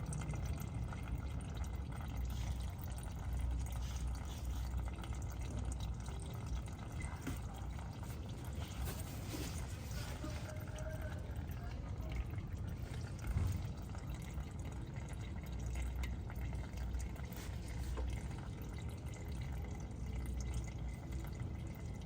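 Engine oil trickling and dripping during a Toyota 1ZR-FE oil change, over a low steady rumble.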